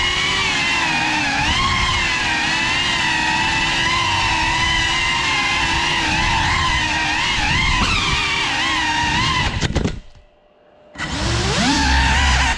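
Small FPV cinewhoop drone (GEPRC CineLog35) flying, its brushless motors and ducted propellers whining in a pitch that wobbles up and down with the throttle. About ten seconds in there are a few knocks and the motors cut out, then they spin back up loudly with a rising whine and stop again just before the end.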